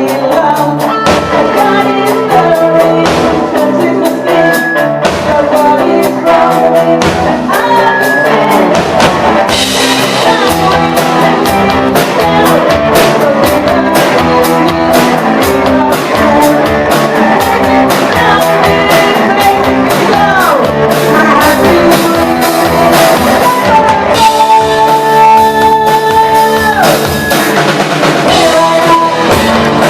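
Rock music: electric guitar, drum kit and singing, played loud and continuously.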